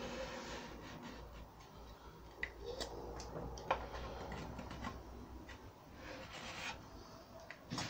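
Sandpaper wrapped round a small wooden block rubbed by hand over a white PU-lacquered door panel, sanding it back between coats. Quiet, uneven scratchy strokes with a few sharp clicks.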